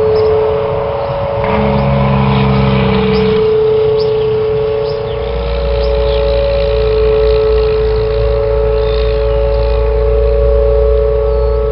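Whelen outdoor tornado warning siren holding a steady two-tone wail during its monthly test. A motor vehicle passes close by: a short engine hum about two seconds in, then a low rumble from about five seconds in.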